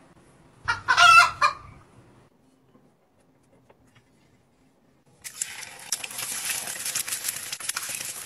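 A hen squawks once, loudly, about a second in. About five seconds in, eggs start sizzling and crackling in hot oil in a four-cup frying pan, and this goes on to the end.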